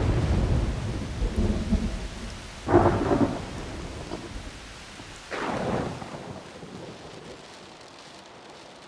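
Thunderstorm: deep rolling thunder rumbling and fading, with two thunderclaps, one near three seconds in and one about five and a half seconds in, over steady rain that is left on its own near the end.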